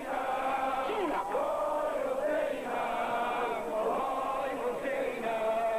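Male voices chanting a slow, drawn-out melodic line: a mourning chant. The notes are held long and bend slowly, with no break in the sound.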